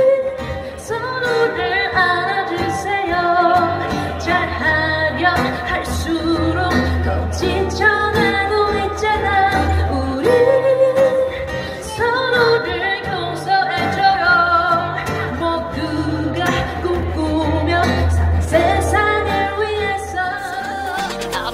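A woman singing a pop ballad, accompanying herself on acoustic guitar.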